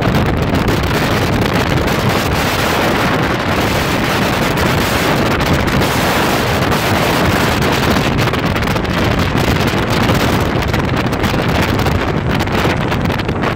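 Steady wind buffeting the microphone on a small open boat under way, with the rush of water along the hull.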